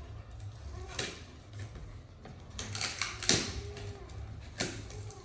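Hard objects being handled, giving scattered sharp knocks and clatter: one about a second in, the loudest a little past three seconds, and another near the end, over a steady low hum.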